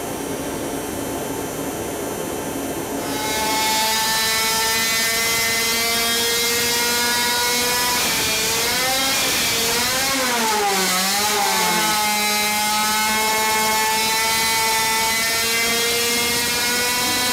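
Supercharged 50cc two-stroke engine running at high revs on a dyno, on nitromethane-methanol fuel with its ignition timing reduced, which seems to make it run worse. A quieter steady hum comes first, and the engine gets louder about three seconds in; its pitch dips and rises a few times near the middle.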